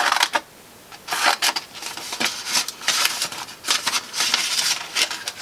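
Small scissors snipping into a sheet of paper, with the paper crinkling as it is turned and handled: a string of short, irregular snips and rustles.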